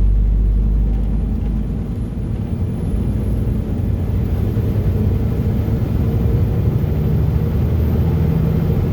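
Strong wind buffeting the microphone: a loud, low rumble that surges and eases without a break.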